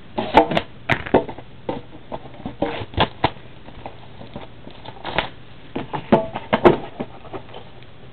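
Hands handling and opening a trading-card box: irregular clicks, taps and short crinkles of the packaging, in several quick clusters.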